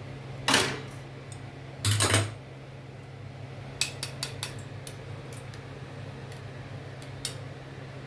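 Kitchen utensils clattering against pots and dishes: a loud clink about half a second in, a longer clatter around two seconds, then a run of lighter clinks, over a steady low hum.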